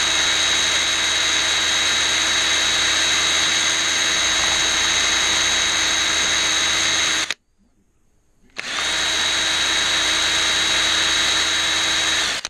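Power drill with a thin bit running at a steady high whine, drilling small holes through only the upper skin of a composite glider wing at a delamination. The motor stops about seven seconds in and starts again just over a second later.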